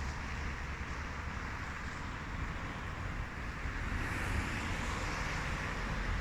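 Steady outdoor noise with a fluttering low rumble, typical of wind buffeting the microphone.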